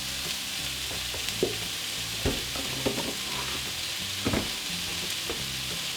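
Pork, broccoli and onions sizzling in hot oil in a frying pan: a steady frying hiss, with a few short knocks through it.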